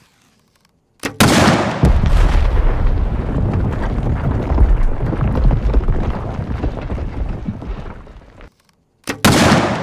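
Two stacked Firebird binary exploding targets going off with a way bigger boom: a sudden blast about a second in, running into a long rumbling explosion sound effect that fades over about seven seconds. After a short silence a second sharp blast comes near the end and dies away.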